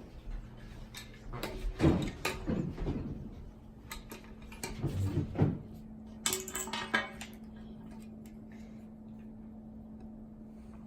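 Clattering and clinking of small hard objects being handled and set down, in bunches about two, five and six and a half seconds in, followed by a faint steady hum.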